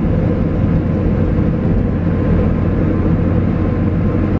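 Steady drone of tyres and engine heard from inside a car cruising at highway speed.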